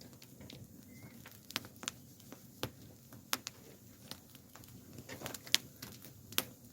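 Wood bonfire crackling, with scattered, irregular sharp pops, the loudest about five and a half seconds in.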